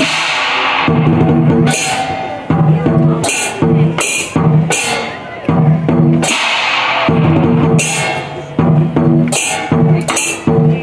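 Chinese dragon dance percussion: a large drum beating in fast rhythmic runs, punctuated by repeated crashes of hand cymbals.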